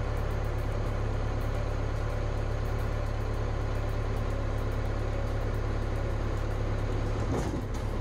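Case 580 SuperE backhoe's diesel engine running steadily, heard from the operator's seat.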